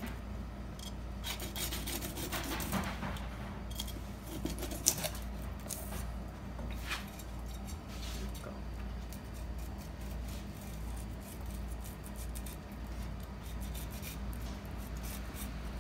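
Kitchen knife cutting along a scale-on isuzumi (brassy chub) on a wooden cutting board, the blade rasping over scales and skin in repeated strokes, with a sharp click about five seconds in. The strokes are louder in the first half, over a steady low hum.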